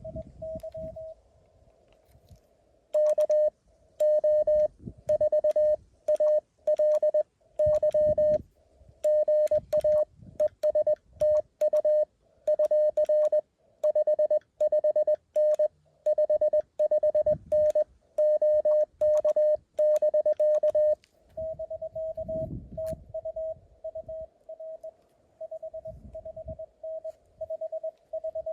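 Morse code tones from a Mountain Topper QRP CW transceiver. From about three seconds in to about twenty-one seconds a loud keyed sidetone sends code. After that a fainter, slightly higher-pitched tone of code carries on to the end, typical of another station being received.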